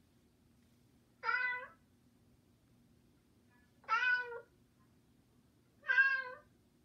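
Three recorded cat meows, about two seconds apart, played by an Amazon Echo Dot smart speaker when asked to make cat sounds.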